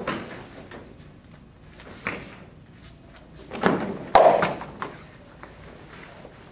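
Thuds of a body hitting a padded mat as an aikido partner is thrown and takes a breakfall. There are several dull impacts, the loudest about four seconds in.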